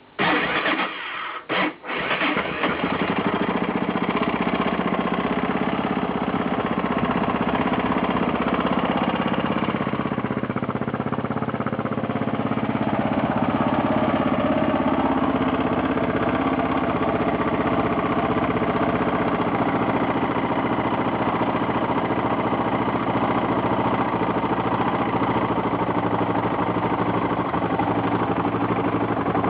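Yamaha XT600E's single-cylinder four-stroke engine starting, faltering twice in the first two seconds, then running steadily at idle. The owner hears a knocking, clattering noise from it and does not know its cause.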